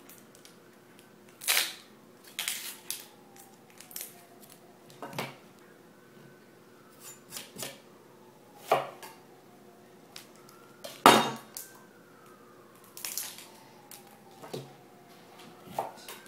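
Chef's knife cutting an onion on a plastic cutting board: a series of separate sharp knocks as the blade hits the board, spaced irregularly a second or more apart, the loudest about two-thirds of the way through.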